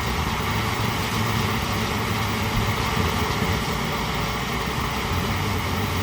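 Swiss Army petrol field stove's pressurised burner burning steadily with the fuel turned off, burning off the residual fuel and pressure left inside its tube.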